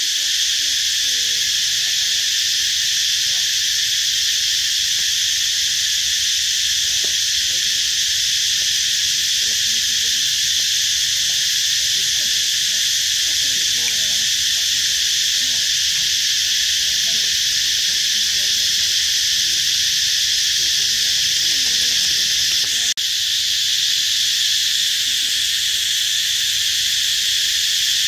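Loud, steady insect chorus, a dense high-pitched drone that drops out briefly about 23 seconds in.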